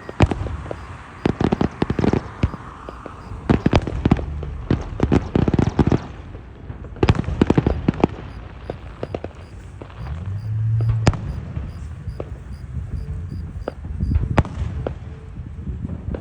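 Fireworks going off: rapid crackling pops and sharp bangs with low booms, thickest in the first six seconds and more scattered after that.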